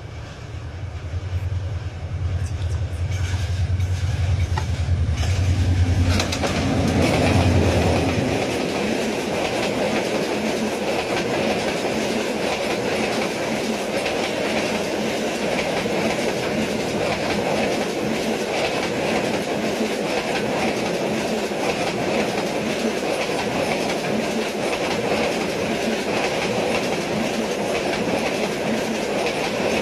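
A Bangladesh Railway diesel-hauled intercity train passing close by on the adjacent track: a low engine drone swells over the first several seconds as the locomotive draws level. About eight seconds in it gives way to the steady rushing rattle and clickety-clack of its passenger coaches, Indonesian PT INKA-built, going by.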